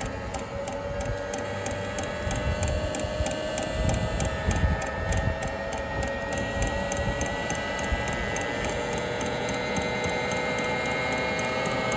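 Espar Hydronic diesel coolant heater running after lighting: its fuel metering pump ticks about three times a second over the whine of its combustion-air blower, which slowly rises in pitch.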